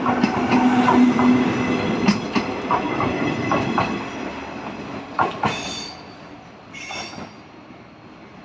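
Four-car 105 series electric train passing over the track and moving away, its wheels clicking over rail joints and a steady hum fading out over the first few seconds. Brief high-pitched squeals come about five and seven seconds in.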